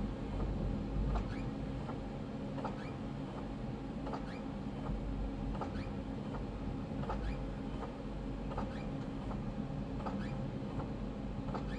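Rapid transit car rolling slowly round a very tight curve, a low steady rumble with short squeaks and clicks from the wheels about once a second.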